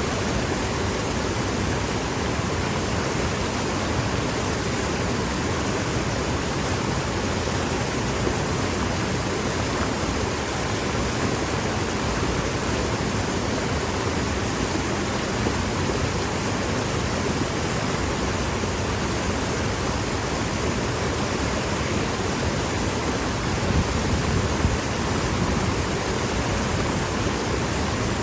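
Stream water rushing downstream over boulders: a steady, even rush of water, a little louder for a moment near the end.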